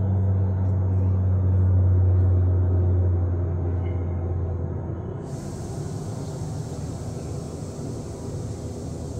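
A steady, low engine rumble that fades about halfway through. A steady hiss suddenly comes in just after it starts to fade.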